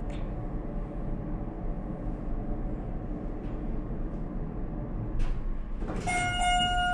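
Schindler MT/300A hydraulic elevator in travel: a steady low rumble and hum from the hydraulic pump unit driving the car upward. About six seconds in, a held electronic chime tone sounds.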